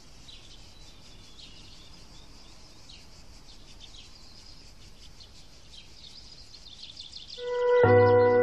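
Many small birds chirping and twittering, quietly and without a break. About seven and a half seconds in, plucked guitar music comes in loudly over them.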